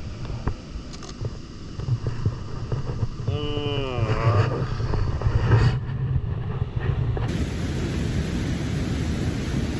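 Low, uneven rumble of wind on the microphone, with a short exclamation from a person's voice about three seconds in. A few seconds later it gives way abruptly to a steady, even hiss.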